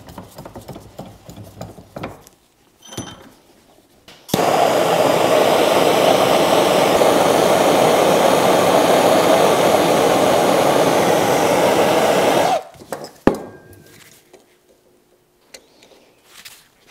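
Hand-held gas torch flame heating a steel drive shaft: a loud, steady rushing noise that starts abruptly a few seconds in, lasts about eight seconds and cuts off abruptly, followed by a single sharp click. Light knocks of the shaft being set in a bench vise come before it.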